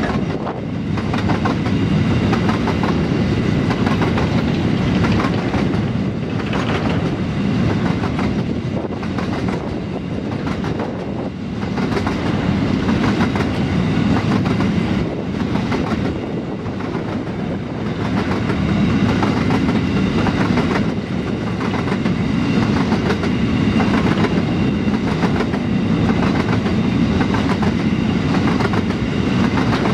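A long rake of grain hopper wagons rolls past in a steady rumble, with the clickety-clack of the wheels running on and on.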